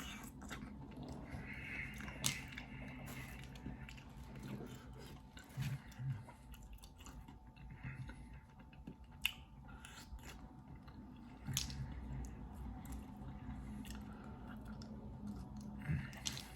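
Close-miked chewing and biting of seafood-boil food, with sharp clicks every few seconds.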